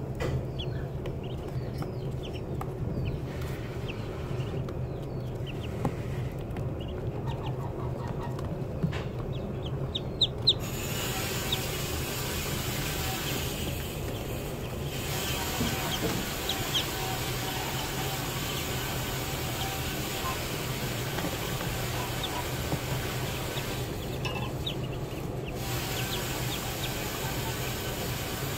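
A brood of Muscovy ducklings peeping: many short, high chirps overlapping constantly.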